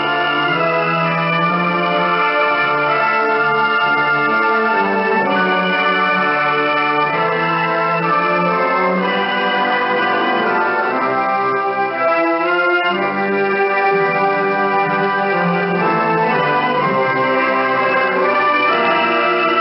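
Instrumental music from a Voice of Korea shortwave broadcast, received over the air: sustained chords, narrow in range, with a faint hiss under the music.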